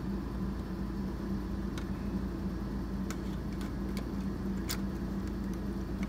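Steady low hum of room ventilation, with a handful of small, sharp metal clicks and taps between about two and five seconds in as a metal headache rack is seated by hand onto a scale model truck's frame.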